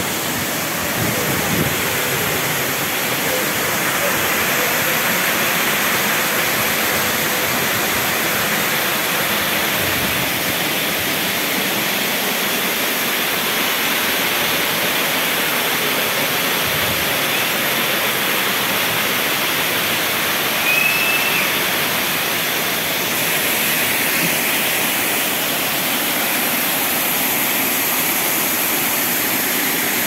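Mountain waterfall: a steady, loud rush of falling water.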